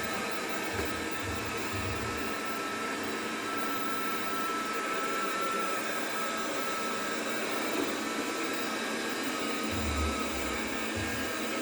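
Robot vacuum cleaner running steadily, a constant whirr with a steady high whine, just after being started by a voice command.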